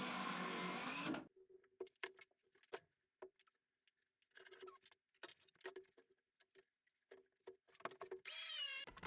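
A motor running steadily, cutting off suddenly about a second in, followed by scattered light clicks and taps with a faint hum, and a brief warbling whistle near the end.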